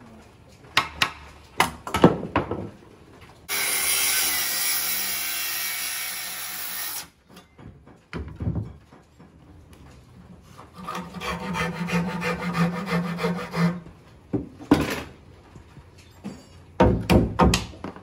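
Wooden stud being cut to fit. A few knocks on wood, then a loud, steady cutting noise lasting about three and a half seconds. A second cutting pass with a steady low hum follows later, and a quick run of knocks comes near the end.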